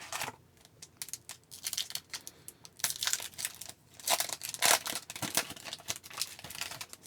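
A foil hockey card pack wrapper being torn open and crinkled by hand, a run of irregular crackles and crinkles.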